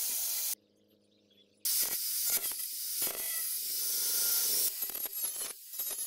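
Angle grinder dressing steel welds: a steady high hiss of the disc on the metal. It stops for about a second near the start, runs again for about three seconds, then breaks into short uneven passes near the end.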